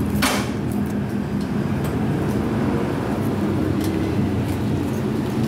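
A vehicle engine running steadily, a low even rumble with a steady hum.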